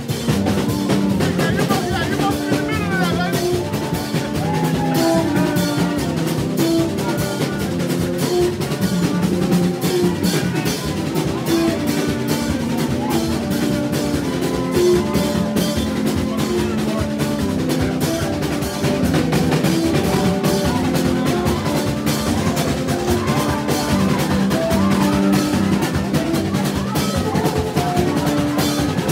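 Live Haitian street band in the rara style: hand drums and a snare drum beat a fast, steady rhythm, with short repeated held notes from bamboo trumpets (vaksin) over it.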